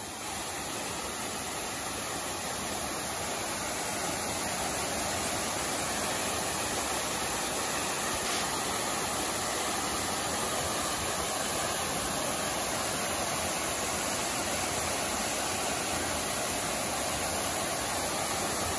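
Waterfall: steady rushing of falling water, growing slightly louder over the first few seconds and then holding level.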